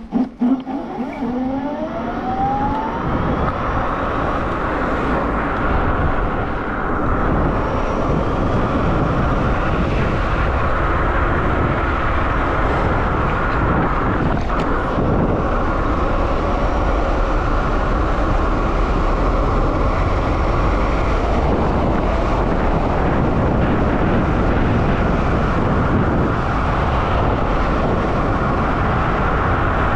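Heavy wind rush over the microphone of a Dualtron X Limited electric scooter riding at speed, with a whine that rises in pitch over the first few seconds as the scooter accelerates.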